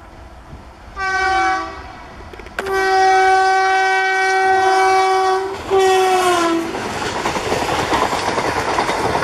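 Electric locomotive's horn sounding three blasts: a short one, a long one of about three seconds, then a short one that slides down in pitch as the locomotive passes. The rushing and clickety-clack of the passenger coaches going by follows.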